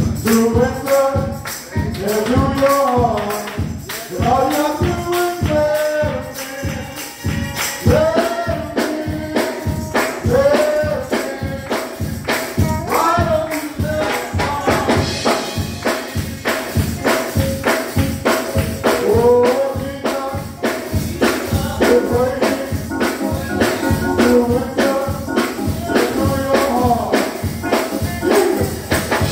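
Gospel praise music: voices singing in long, bending melodic lines over a tambourine struck in a steady beat.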